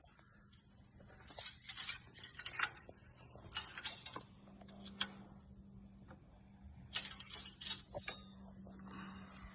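Engine oil dipstick of a 2005 Honda Accord clicking and rattling in its metal tube as it is pushed in and drawn back out to check the oil level, in several short bursts of light metallic clinks.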